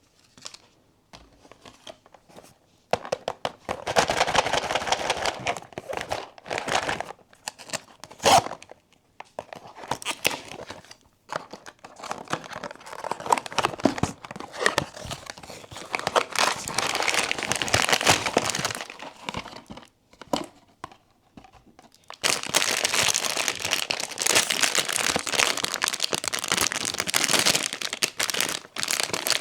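Blind-box packaging being opened by hand: crinkling wrapping and tearing, in several stretches separated by short pauses, with a sharp snap about eight seconds in.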